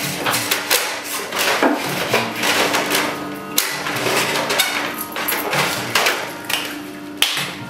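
Repeated irregular blows of a hammer against painted wood, knocking and cracking as a wooden sculpture is smashed apart.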